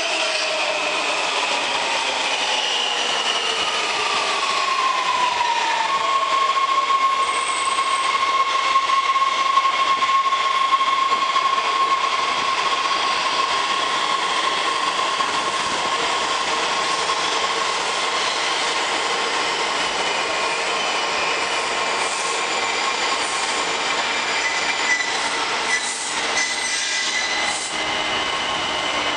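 Washington Metro subway train pulling into an underground station: a falling whine as it slows over the first few seconds, then a long steady high tone over the rumble of the cars rolling along the platform, with a few clicks near the end.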